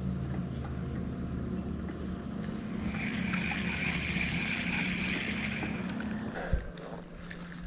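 Small fishing boat's motor humming steadily, with a higher hiss joining it for a couple of seconds in the middle. The hum stops with a thump about six and a half seconds in.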